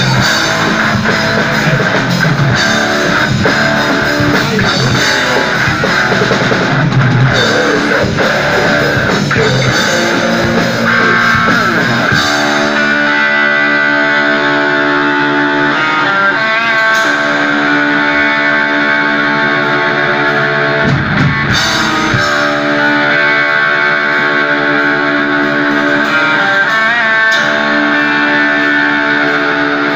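Live heavy rock band playing loudly: distorted electric guitars, bass and drum kit. About twelve seconds in the drums and low end drop out, leaving the guitars holding sustained ringing notes, broken once by a short full-band hit about twenty-one seconds in.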